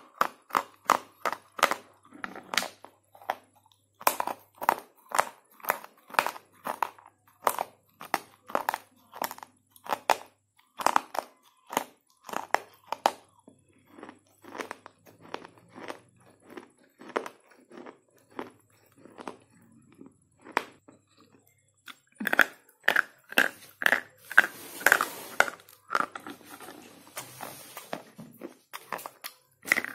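Slate pencils being bitten and chewed: sharp, crisp crunches at about two a second, thinning out for a while midway, then a denser, louder spell of crunching near the end.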